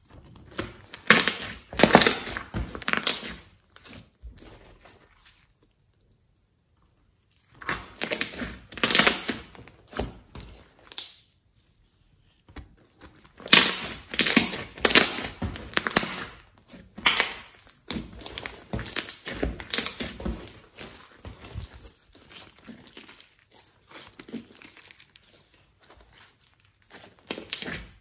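Hands kneading, stretching and pressing thick slime, giving sticky squelches and dense crackling clicks of air pockets bursting. The sound comes in bursts of a few seconds with short quiet pauses between.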